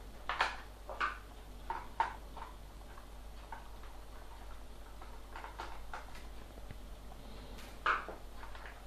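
Light clicks and taps from hand tools and the plastic case of a laptop being worked on during disassembly: a few in the first two seconds, scattered ones later and a sharper click near the end.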